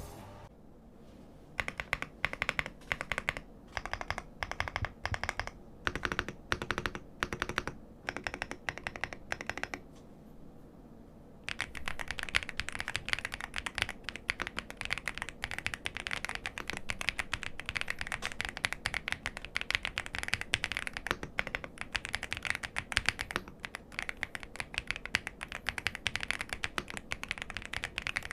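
VGN VXE75 mechanical keyboard, its FR4 plate stack packed with foam filling. First come single presses of the large stabilised keys, about two a second. After a short pause, about a third of the way in, fast continuous typing follows.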